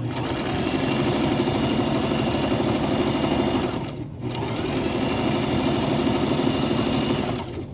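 Domestic electric sewing machine running fast and stitching through fabric, stopping briefly about halfway through, then running again until just before the end.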